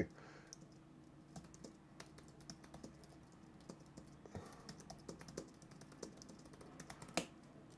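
Faint typing on a computer keyboard: a run of quick, irregular key clicks, with one louder key press near the end.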